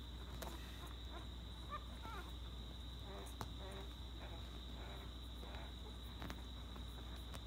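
Very young American Bully puppies giving faint, short high squeaks and whimpers, over a steady high-pitched whine and a low hum.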